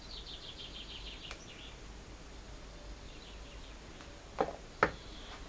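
Two sharp plastic clicks about half a second apart, a small plastic paint pot being set down on a table. Earlier, a faint, high, rapid chirping trill.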